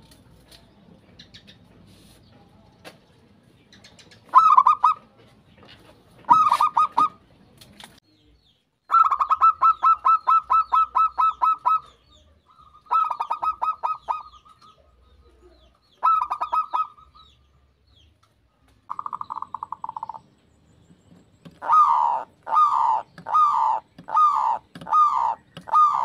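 Zebra dove (perkutut) cooing: bursts of rapid, pulsed staccato coos, one of them a long trill of about three seconds, then a run of short separate coos, a little over one a second, near the end.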